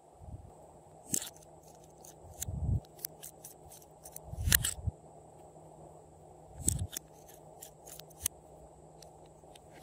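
Hard plastic clicks and taps from a lip gloss tube and its square cap being handled and worked open, with a few dull thumps among them. A faint steady hum runs underneath.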